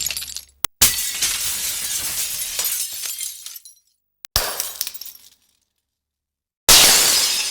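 Glass shattering, one separate crash after another. A crash about a second in is followed by a long spill of tinkling shards. A shorter one comes at about four and a half seconds, and another starts near the end, with brief silences between them.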